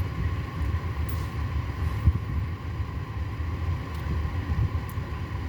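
A steady low rumble with a faint hum.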